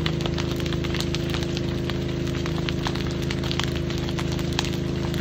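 A burning building crackling and popping with many short, irregular snaps, over the steady hum of an engine running throughout.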